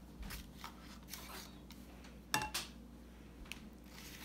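Spatula spreading thick blueberry filling in a ceramic baking dish: faint scrapes and soft taps, with a louder double tap against the dish about two and a half seconds in.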